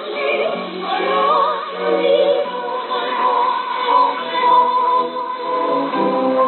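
Vocal music with a singing voice in a heavy, wavering vibrato, operatic in style, received over shortwave radio with the sound narrowed to below about 4 kHz.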